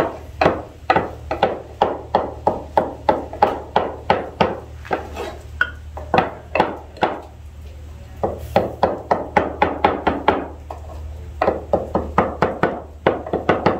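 Kitchen knife chopping fresh parsley and thyme on a wooden cutting board: quick, even chops about three a second, broken by a few short pauses.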